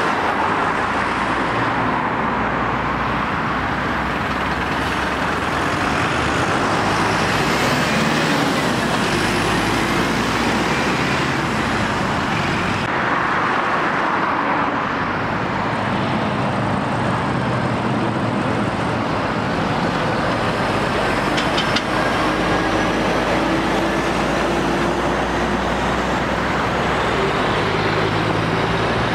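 Road traffic: lorries and cars passing, with the running of heavy diesel lorry engines over steady tyre noise.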